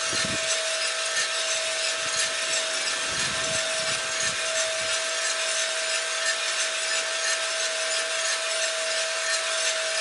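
Cormorant CR600 gas drum coffee roaster running mid-roast, before first crack: the beans rustle and hiss as they tumble in the turning drum over a steady hum from the motor and fan, with a few low rumbles in the first half.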